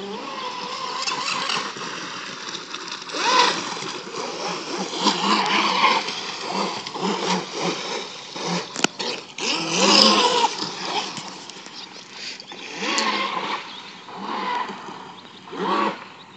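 Miss Geico 29 V3 remote-control racing boat's brushless electric motor running on the water, its whine rising and falling in several surges as the throttle is worked.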